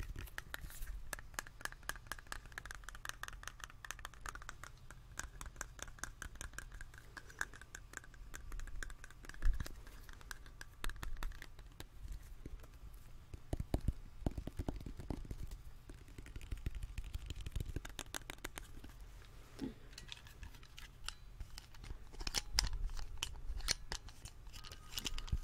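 Fingertips and nails tapping and scratching on a metal tuna can held close to the microphone, in a quick run of light ticks that thins out into sparser taps. Near the end come louder clicks as a hand-held can opener is handled.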